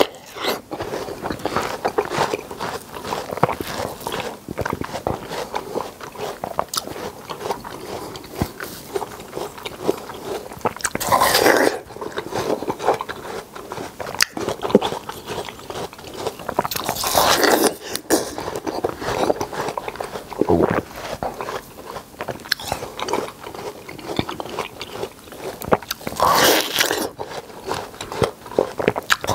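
Close-miked biting and wet chewing of juicy yellow-rind watermelon flesh, a steady crackle of juicy crunches with three louder bites spread through.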